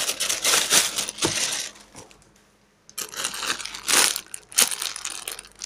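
Thin plastic bag and clear plastic toy wrappers crinkling and rustling as they are handled close to the microphone, stopping for about a second in the middle.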